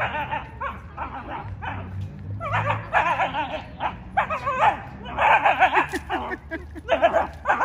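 Dog barking and yipping in several bursts.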